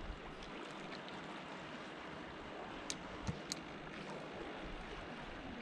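Sea water washing and lapping among concrete tetrapods, a steady gentle wash, with three small clicks a little past the middle.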